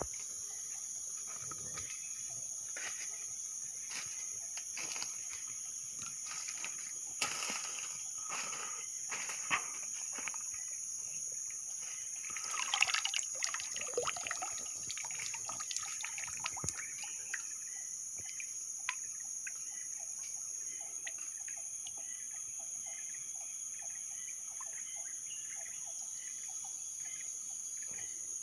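Water sloshing and splashing in a shallow, slow forest stream as someone moves through it, with scattered splashes and the loudest splashing about 13 seconds in, calmer later. Over it runs a steady high-pitched insect drone.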